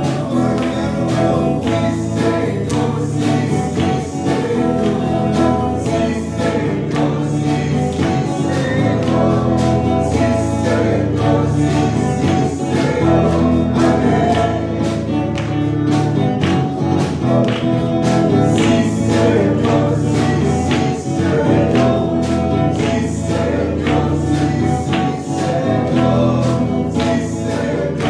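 Spanish-language Christian worship song: a man sings lead into a microphone over instrumental accompaniment with a steady beat and backing voices.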